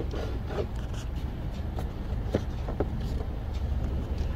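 Plastic engine air filter housing and panel air filter being handled as the filter is taken out: scattered light clicks and rustles over a steady low rumble.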